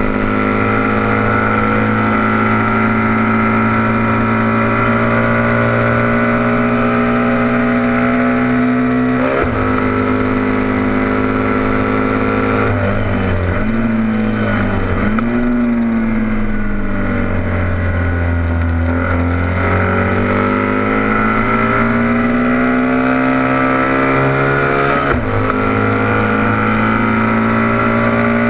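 Onboard sound of a vintage heavyweight production racing motorcycle's engine under power at speed, with a gear change about nine seconds in. Around halfway the revs fall through two quick downshifts, then climb again under acceleration, with another upshift near the end.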